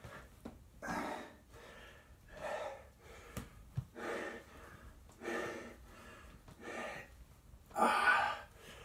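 A person breathing hard from exertion, with a heavy breath about every second and a half and lighter ones between, the loudest near the end. Two small clicks come in the middle.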